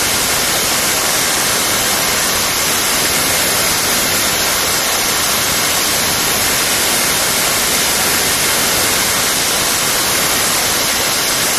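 Loud, steady white-noise static hiss with no rhythm or tone in it, like a blank or dropped-out stretch of old videotape.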